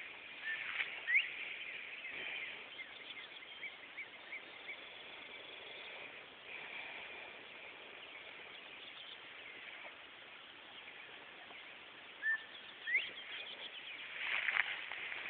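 Open-field outdoor ambience: birds chirping now and then, with a few short rising calls over a faint steady high background. Near the end comes a crackle of rustling, like footsteps through tall grass.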